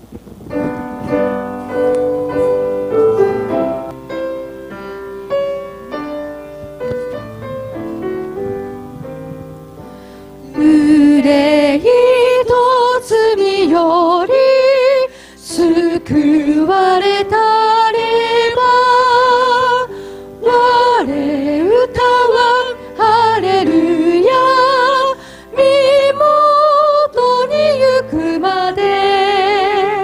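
Grand piano playing the introduction of a Japanese hymn, then about ten seconds in voices join in singing the hymn over the piano, with vibrato on the held notes.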